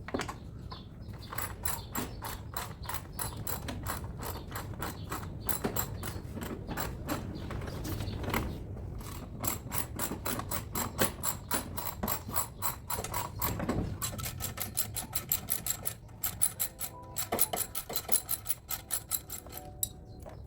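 Hand ratchet wrench clicking in quick, even runs of strokes, several clicks a second.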